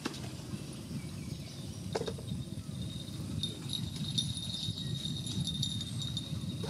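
Water buffalo moving and wallowing in a pond, water sloshing and splashing around them, with a single knock about two seconds in. About halfway through a thin, high jingling ring begins and holds.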